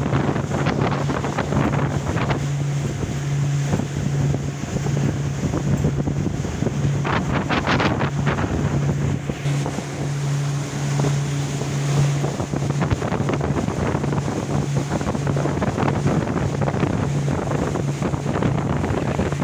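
Wind buffeting the microphone over the steady low hum of a boat's engine, with wash of water and rain.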